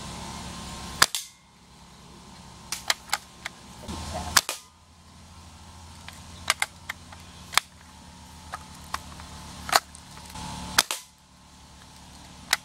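Daisy Grizzly single-pump BB air rifle firing repeatedly at soda cans: four loud sharp shots, with lighter clicks and ticks between them.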